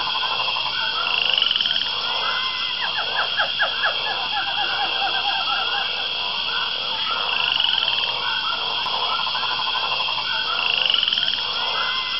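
Jungle ambience of frogs calling in a dense chorus of quick, repeated croaks over a steady high-pitched drone, with a short rising whistle a few times.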